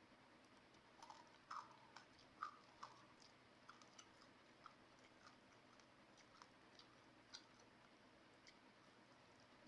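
A person quietly chewing fried fish: soft wet mouth clicks and small bites, several close together in the first three seconds, then sparser ticks.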